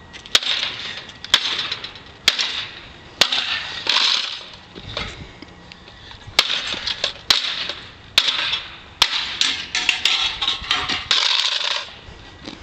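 Baseball bat striking the bent metal chassis of a broken-up Xbox 360 on asphalt: sharp metallic bangs, each followed by a brief rattle of loose parts. There are about a dozen blows, roughly one a second, coming faster near the end.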